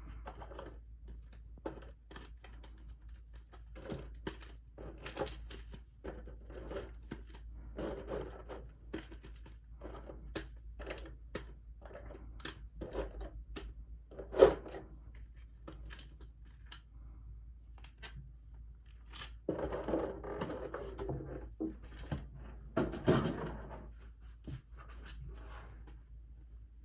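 Hands handling and opening a trading-card collection box and its packaging: irregular rustles, scrapes and small taps, with a sharp knock about fourteen seconds in and busier rustling later on.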